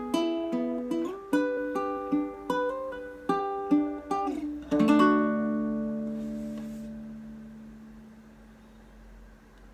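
Ortega RU5-BA Bonfire Series baritone ukulele being fingerpicked, single notes with a few slides, ending about five seconds in on a final strummed chord that rings out and slowly fades.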